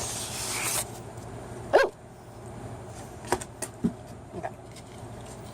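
Packaging rustling briefly as the wig is handled, then one short, sharp yelp just under two seconds in, followed by a few light clicks.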